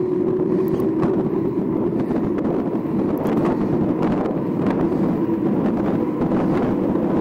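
Mountain bike rolling at speed on an asphalt lane: a steady hum of the tyres on the pavement under wind rushing on the microphone, with a few light clicks.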